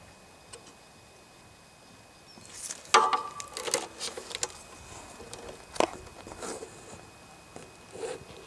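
Handling noise inside an opened amplifier chassis: a sharp click at the start, then from about two and a half seconds in irregular taps, knocks and rustling as a hand and the camera brush the wiring and toroidal transformer, with a short squeak about three seconds in.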